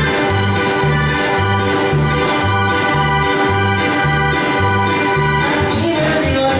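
A live cumbia band playing an instrumental passage. A Korg electronic keyboard holds organ-like chords over a bass line bouncing between two notes about twice a second, with steady percussion. The bass pattern breaks briefly near the end.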